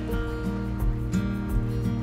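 Instrumental background music with sustained notes over a repeating bass line and a steady beat.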